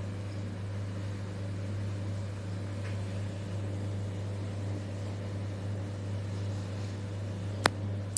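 A steady low mechanical hum with a light hiss, and one sharp click near the end.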